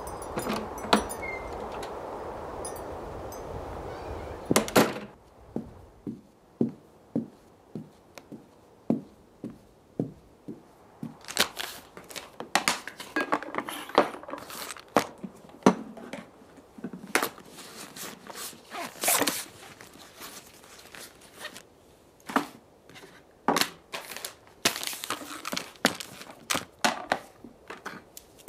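A steady noisy hiss ends in a loud sharp knock about five seconds in. Then comes a run of separate sharp knocks and cracks, at first spaced about twice a second, growing denser and more irregular later on.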